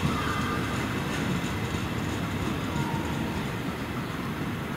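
Regional passenger train rolling away along the track, a steady low rumble of wheels on rails that slowly fades as it recedes.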